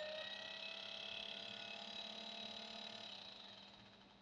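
Small 12 V permanent-magnet DC fan motor, its brushed motor whining steadily at speed on newly fitted carbon brushes, the sign of the repair working. The whine fades away about three seconds in.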